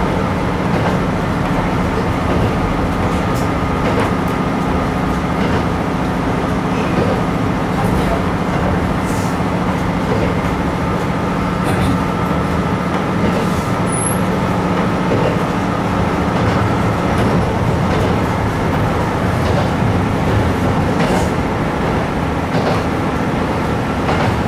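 Diesel railcar running along the line, heard from inside, with a steady engine drone over rumbling wheel noise and a few faint, irregular clicks.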